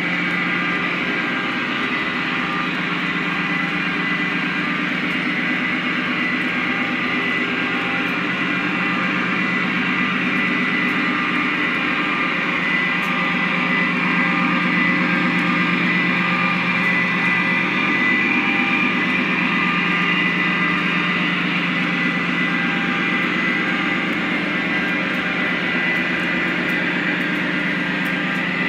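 Lionel Legacy model freight train running past on three-rail track: a steady rolling rumble with a constant motor hum.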